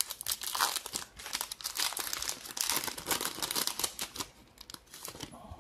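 Foil wrapper of a 2023 Bowman baseball hobby card pack being torn open and crinkled by hand: a dense crackling that thins out and fades near the end.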